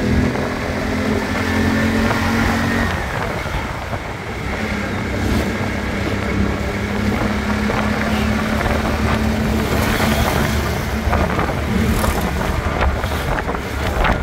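Engine hum and road noise from a vehicle moving along a road. It is steady throughout, with a higher engine note for the first three seconds. Wind buffets the microphone in the last few seconds.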